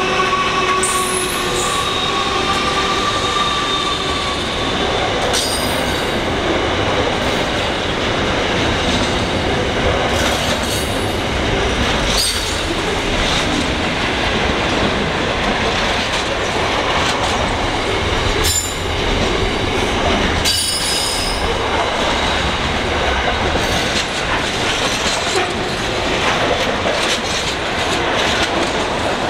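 Container wagons of a long intermodal freight train rolling past with a steady loud rolling noise. Brief high wheel squeals come several times. In the first few seconds the engine tone of the passing NR-class diesel-electric locomotives fades away.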